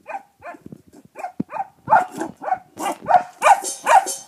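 Puppy barking in quick short yaps, about three a second, growing louder about two seconds in, at a rock stuck under its metal food bowl. One sharp knock sounds between the barks about a second and a half in.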